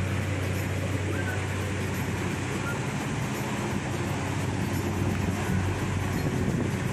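A river cargo ship's engine running with a steady low drone, under an even hiss.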